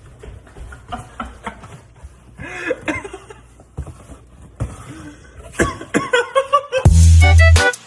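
Scattered short vocal sounds, like laughing or coughing. About seven seconds in, loud music with a heavy bass beat comes in.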